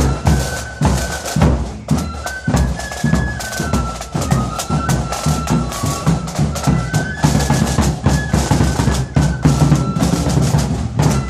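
Marching flute band playing a tune in the street: flutes in unison carry a stepping melody over steady bass drum and snare drum beats.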